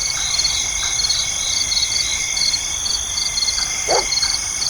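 Crickets chirping in short pulsed trills about twice a second over a steady, high insect drone. A single lower call sounds about four seconds in.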